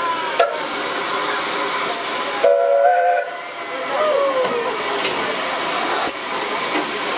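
4-8-2 steam locomotive hissing steam, with a short whistle blast of several notes together about two and a half seconds in, followed by a brief wavering squeal.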